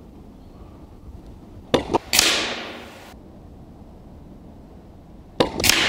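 Two shots from a silenced Daystate Airwolf MCT .177 pre-charged air rifle, about three and a half seconds apart. Each is a sharp crack followed by a hiss that fades over about a second.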